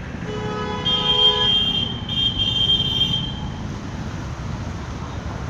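Vehicle horns sounding steadily for about three seconds over a continuous low engine rumble.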